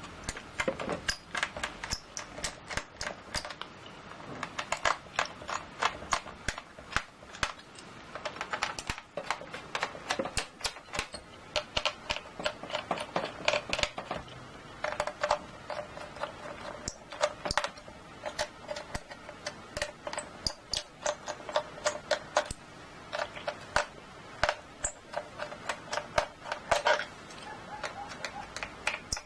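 Keys of a computer keyboard being typed on: rapid clicks in uneven runs with short pauses between them.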